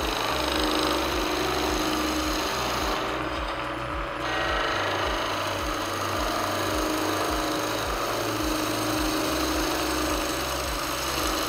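Skew chisel taking a planing cut on a spinning wood blank on a lathe: a steady cutting noise over the lathe's running hum, peeling off long ribbon shavings. The cut thins briefly about three seconds in.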